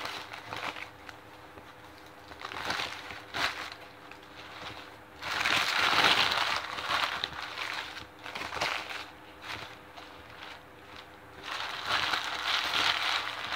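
Subway sandwich paper wrapper crinkling and rustling as it is opened off a footlong sandwich, in bouts of crackling that grow loudest about five seconds in and again near the end.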